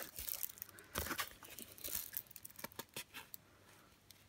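Paper-backed diamond-painting canvas and its clear plastic cover film crinkling and rustling as it is unrolled and handled, in short irregular crackles that stop shortly before the end.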